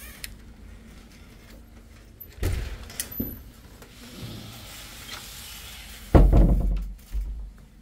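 A series of knocks and thumps: two knocks a little over two seconds in and a sharp click at three seconds, then a heavy, deep thump about six seconds in, the loudest sound, and a smaller one a second later.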